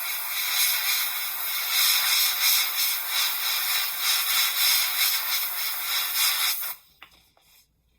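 Airbrush spraying thinned acrylic paint at 20 psi: a steady hiss of air and paint that wavers in loudness, cutting off about seven seconds in.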